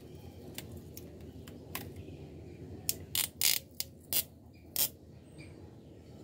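Clear adhesive tape pulled off its roll in four short rips between about three and five seconds in, after a few light clicks and taps of handling the glass cup and plastic sheet.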